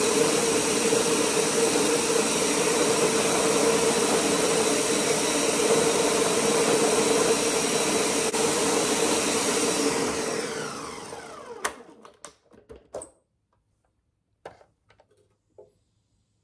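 Countertop blender running at high speed, churning ground peanuts into peanut butter. After about ten seconds it is switched off and spins down with a falling whine. A sharp click and a few light knocks follow.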